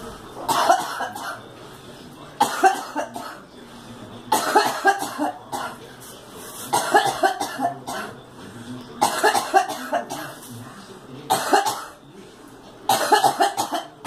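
A woman coughing in repeated fits: seven bursts of several coughs each, about one every two seconds.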